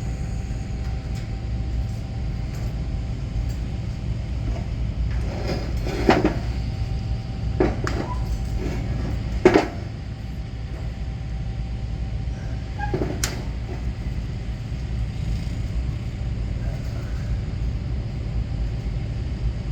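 A steady low rumble with a faint steady hum, broken by four sharp knocks or clanks at uneven gaps; the loudest comes about halfway through.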